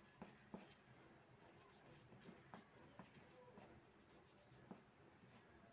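Near silence with faint, irregular light taps and strokes of a paintbrush on paper.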